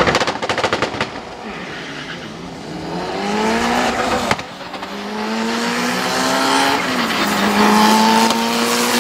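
A Honda Civic and a Mitsubishi Lancer Evolution launching side by side in a drag race. A burst of rapid stuttering revs at the line gives way to the engines winding up through the gears, their pitch climbing in steps with a gear change about four seconds in and another about seven seconds in. Tyres spin on the launch.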